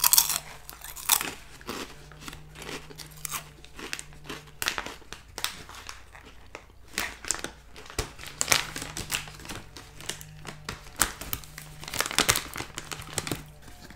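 Plastic snack bag of veggie straws crinkling in irregular crackles as it is handled and turned, mixed with the crunchy chewing of a veggie straw.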